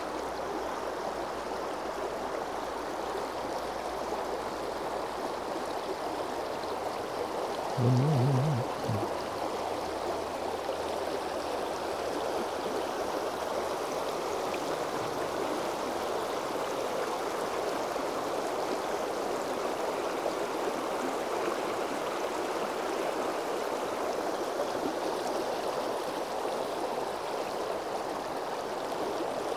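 Shallow river running over a stony bed and around stepping stones: a steady rushing of water. About eight seconds in, a brief, louder low-pitched sound lasts about a second.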